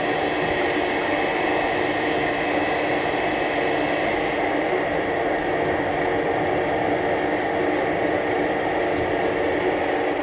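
DANOBAT 500 RP cylindrical grinder running under power: a steady machine hum and whine from its motors and pumps. The highest hiss eases off a little about halfway through.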